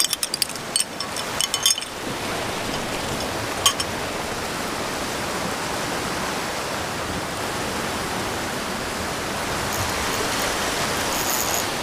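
Steady rushing wash of surf on a rocky shoreline. A few sharp clicks come in the first two seconds from handling the fishing rod and reel, with one more click a little later.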